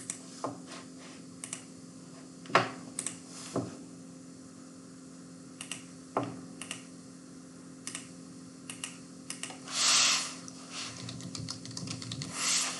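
Scattered clicks of a computer mouse and keystrokes on a computer keyboard, a few at a time with pauses between, over a faint steady hum. A brief hiss about ten seconds in.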